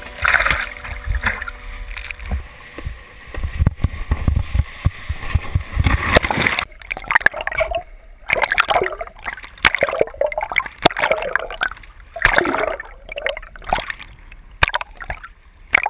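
Water rushing and splashing against a GoPro camera at the water's surface, heard muffled through its housing. It surges unevenly, rumbling for the first several seconds, then breaks into irregular splashes with brief gaps.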